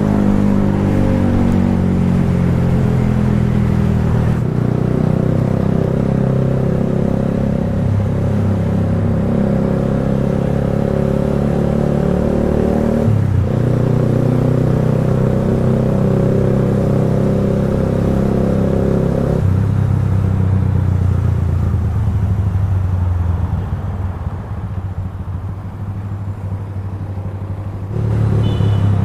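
Kawasaki Rouser 180's single-cylinder engine running through an Akrapovic slip-on muffler, its exhaust note holding steady and changing pitch in a few sudden steps. It drops quieter for a few seconds near the end, then picks up again.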